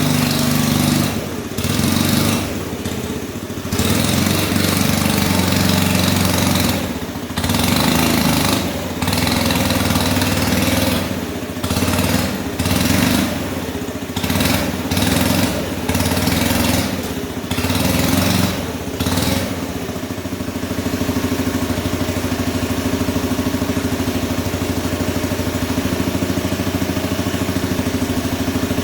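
Small combustion engine of a hand-built RC scale Cat D11 bulldozer running, its speed and loudness rising and dropping again and again, then settling to a steady idle for the last several seconds.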